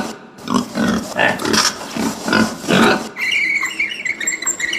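Domestic pig grunting in a quick series of short grunts, about two or three a second, for roughly three seconds, then a fainter, different sound near the end.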